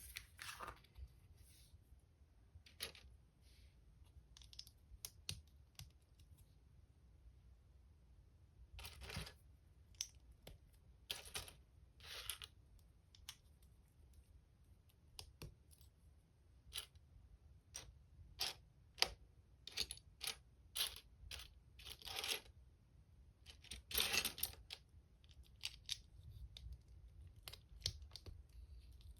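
LEGO BrickHeadz pieces being handled and pressed together: scattered light plastic clicks, with a few longer rustles from sorting through the parts.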